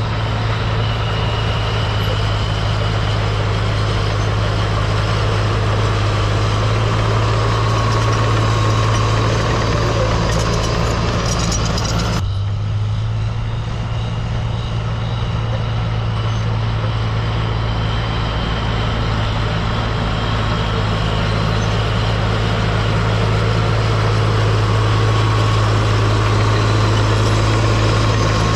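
Diesel engine of a tracked machine (crawler loader or dozer) running steadily with a deep, even hum. The higher part of the sound changes abruptly about twelve seconds in.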